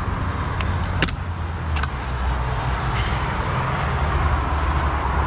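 Heavy truck diesel engine idling steadily, with a few sharp metallic clicks and knocks from the rigging work, the loudest about a second in.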